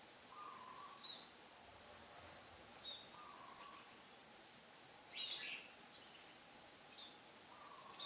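Red-whiskered bulbul giving short, faint high chirps every second or two, with one louder, longer call about five seconds in.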